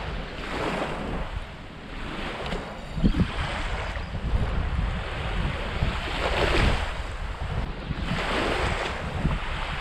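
Wind buffeting the microphone over small waves washing onto a sandy beach, the hiss of the wash swelling and fading several times, with one brief low bump about three seconds in.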